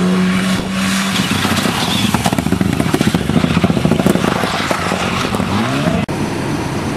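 Mitsubishi Lancer Evolution rally car driven hard on a gravel stage. The engine is held at a steady high note, then breaks into a rapid, rasping pulsing as the car passes and pulls away, and revs up again near the end.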